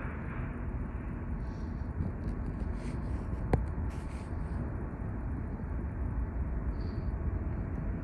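A steady low rumble, with one sharp click about three and a half seconds in.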